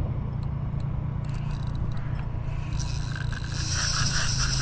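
Spinning reel being wound close to the microphone, its gears scraping and whirring, with a rhythmic pulse of about four beats a second setting in about three seconds in.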